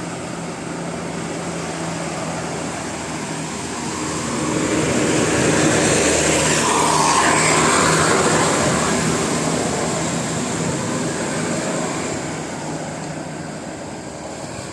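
A vehicle driving past on the road, its engine and road noise swelling to a peak about halfway through and then fading away.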